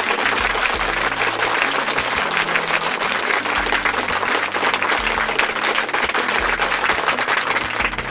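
Applause from a crowd, a steady, dense clapping, with a faint low bass line under it.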